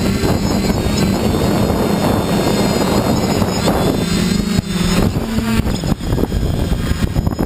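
FPV quadcopter's motors and propellers buzzing at a steady pitch under a high whine, with wind rushing over the drone's onboard microphone as it skims low over grass. Near the end the motor tone drops out as the drone comes down in the grass.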